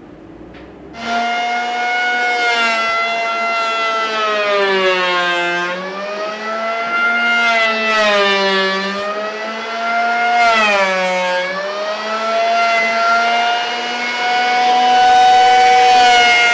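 GMC handheld electric power planer switched on about a second in and cutting along a curved oak frame. The motor whine sags in pitch as the blades bite into the wood and recovers between passes, several times over.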